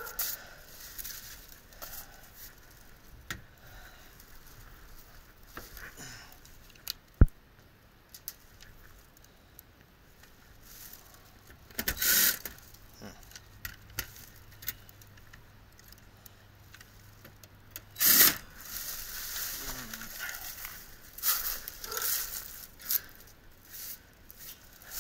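Scattered handling noises: clinks, rattles and scrapes of metal parts and tools being moved, with one sharp click about seven seconds in and two louder bursts of clatter around twelve and eighteen seconds.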